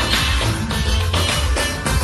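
Bollywood dance song playing through an instrumental stretch without vocals, driven by a heavy, pulsing bass beat.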